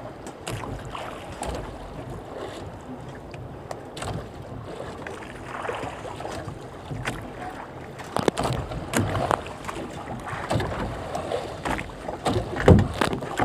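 Small fishing boat on the water: a steady wash of water and wind noise, with a run of knocks and thumps on the boat that grow more frequent in the second half, the loudest one near the end.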